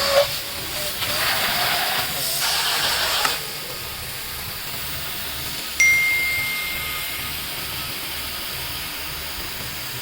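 Water spray hissing as it is forced through a clogged catalytic converter element to wash it out, stopping abruptly about three seconds in. A little after that, a single metallic ding rings on for a second or so.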